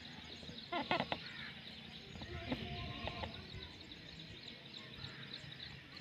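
Indian ringneck parrot making soft short calls and chatter, with a quick run of sharp clicks about a second in and faint chirps throughout.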